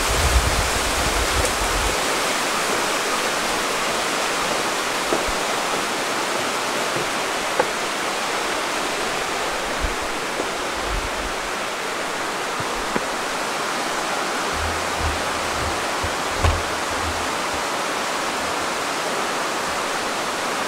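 Steady rush of a mountain river flowing fast through a rocky gorge, with a few brief low rumbles partway through.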